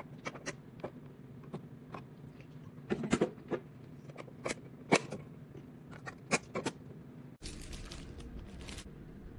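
Sharp plastic clicks and knocks as a clear plastic bean hopper is handled and seated on a coffee vending machine. About seven seconds in, a second or so of crinkling plastic packaging as a hose is pulled from its bag.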